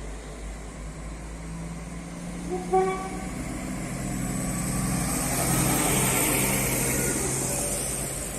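Passenger train giving a short horn toot about three seconds in, then the train's running noise building up: a steady low drone with a rising hiss, loudest around six seconds in.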